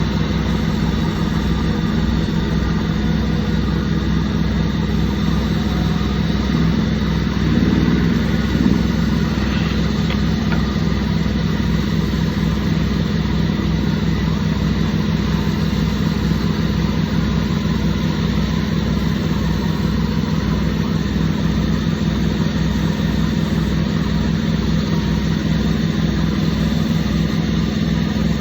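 Sawmill's engine running steadily at a constant speed, with a brief louder patch about eight seconds in.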